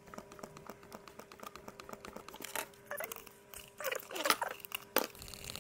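Small clicks and scrapes of two-part epoxy being pumped from a dispenser into a plastic mixing cup and stirred with a wooden stick, over a faint steady hum.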